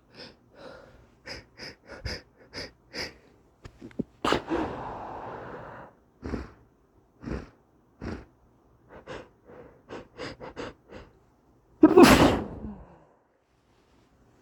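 A person taking short, sharp, noisy breaths as a sneeze builds, with a longer breathy exhale about four seconds in, then one loud sneeze near the end.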